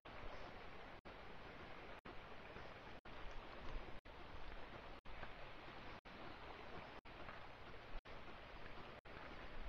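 River water running over shallow rocky rapids: a steady rushing hiss.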